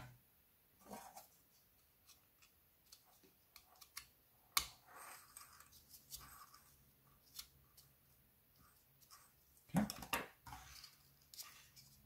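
Faint clicks and rustles of plastic 80 mm computer fans being handled by hand while small screw fittings are moved from one fan frame to the other, with one sharp click about four and a half seconds in and a louder clatter about ten seconds in.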